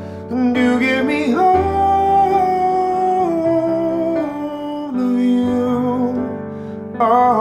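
A man singing long held notes, sliding up into a high sustained note about a second in, over soft piano chords played on a keyboard. A new sung phrase starts near the end.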